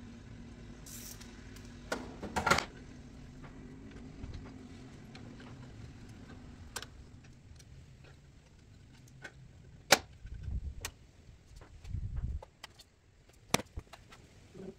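Scattered metal clinks and knocks of hand tools and parts at the flywheel end of a Volkswagen 1300 Beetle engine, with a quick cluster of sharp clinks about two and a half seconds in and a few duller thumps later on.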